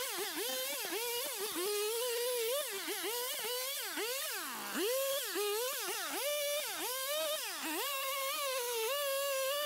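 Chainsaw cutting into a cabbage palm trunk to harvest the heart (swamp cabbage), its engine pitch sagging and recovering over and over as the chain bites and clears. About halfway through it bogs down deeply, then revs back up.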